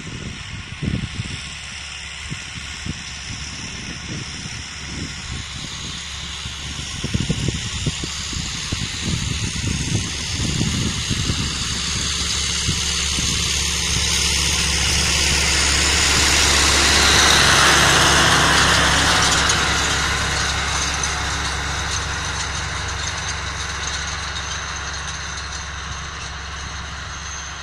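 TK-80 tractor engine running steadily as it pulls a cultivator through the soil. It grows louder as the tractor passes close about two-thirds of the way through, then fades as it drives away.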